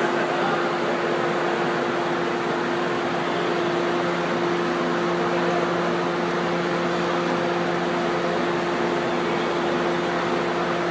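Steady rushing hum of air-moving machinery, with a constant low tone in it.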